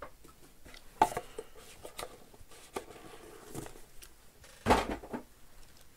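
Scattered clicks, taps and light rustles of hands handling a trading-card box and its packaging, about one every second, with a louder clatter about three-quarters of the way through.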